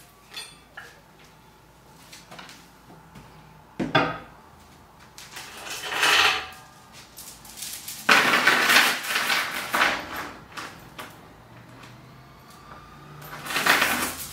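Steel link chain rattling and clinking as it is handled and pulled up by hand, in four bursts. The longest and loudest comes about eight to ten seconds in.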